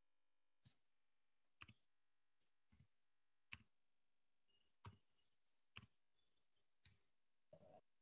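Near silence broken by faint sharp clicks, about one a second, with a slightly longer, fuller click-and-rustle near the end.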